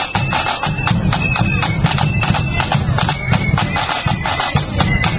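Marching flute band playing: flutes carry a high, held melody over rapid drumbeats and a bass drum.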